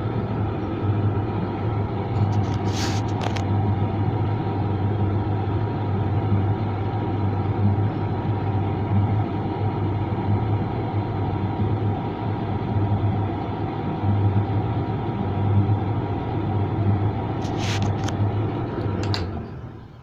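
Creda 37762G tumble dryer running: a steady motor and fan drone with a strong low hum, broken by a few brief clicks, dying away in the last second.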